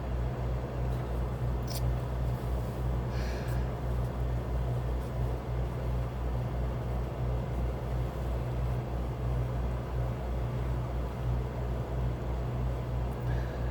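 Steady low-pitched machine hum with a slight regular pulse, as from a running motor. About three seconds in there is a brief soft hiss.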